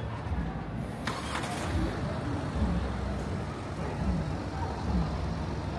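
Street traffic: a steady low rumble of cars and other vehicles, with a brief hiss about a second in.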